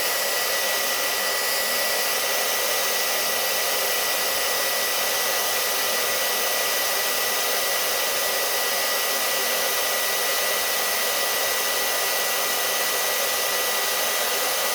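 Handheld hair dryer running steadily: a loud even rush of air with a steady high whine.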